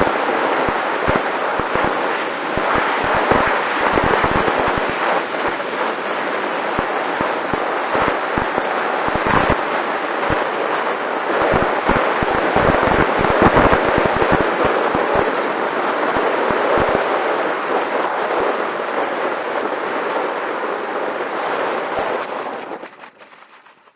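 Wind rushing over the microphone of a camera on a small RC plane in flight, crackling with many sharp buffets, with a faint steady motor tone beneath. It fades out near the end.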